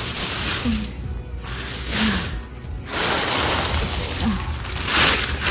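Dry leaves and a black plastic trash bag rustling and crinkling as leaves are stuffed into the bag by hand, in several loud surges about a second or two apart, with background music underneath.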